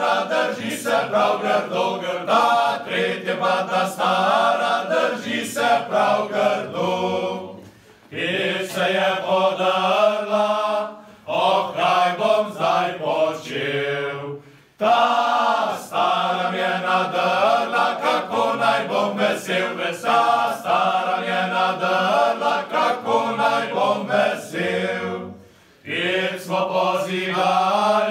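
Choral singing in a chant-like style, phrase after phrase, with short breaks between phrases.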